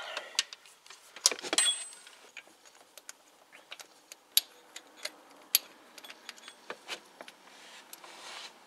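Hand work on a timing-belt idler pulley and its bolt: irregular light metallic clicks and clinks, with a louder clatter about a second and a half in.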